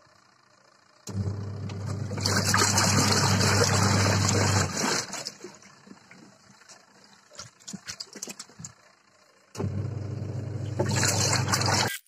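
Top-loading washing machine agitating a foamy wash load: the motor hums while the pulsator churns and splashes the water, starting about a second in and stopping after a few seconds. It is followed by a pause with small splashes as the clothes are moved by hand, and the agitation starts again near the end.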